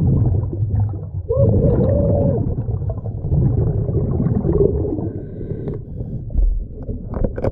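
Underwater sound of a scuba diver at work: a muffled low rumble with gurgling bubbles from his regulator exhaust, and a dull bump a little over six seconds in.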